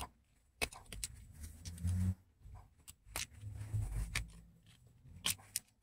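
Metal screwdriver tapping, prying and scraping at a car battery's plastic lid and terminal: a scattering of sharp, irregular clicks with a few low handling bumps between them.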